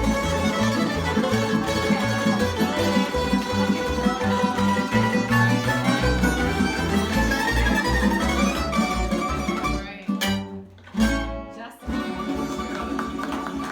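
Tamburitza ensemble playing a lively Croatian folk tune on plucked tamburica strings over a steady bass line. About ten seconds in the music breaks off, with two short, loud hits, then carries on more quietly.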